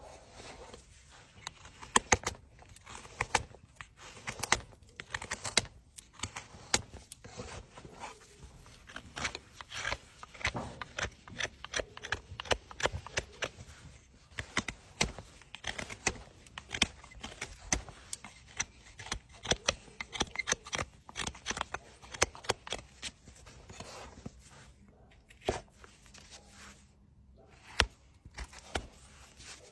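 A hoof knife cutting and paring overgrown hoof horn: repeated short scraping and tearing strokes, irregular and close together, with a few louder sharp snaps.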